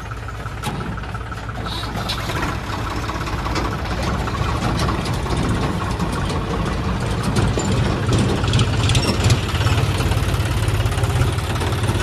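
Tractor diesel engines running close by: a steady low rumble that grows louder from about eight seconds in as a tractor with a trolley pulls away.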